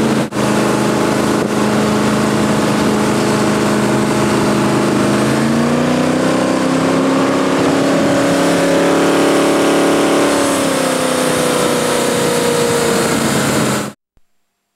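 Jet boat's engine running steadily, its pitch rising about five seconds in as the boat speeds up, holding, then easing back down. The sound cuts off abruptly near the end.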